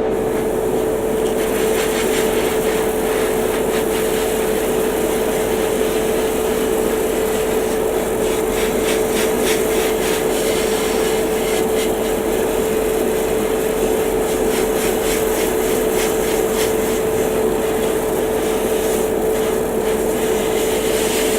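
Airbrush compressor running with a steady hum, while an airbrush sprays primer in a hiss that starts about a second in and flickers on and off as the trigger is worked.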